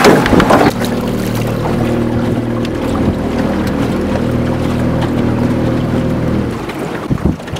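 Boat's outboard motor running steadily at idle, with a brief burst of wind and handling noise in the first second.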